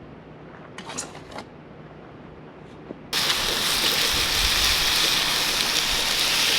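A few faint clicks and rustles, then, about three seconds in, loud sizzling starts abruptly and holds steady: Korean barbecue meat frying on a hot grill.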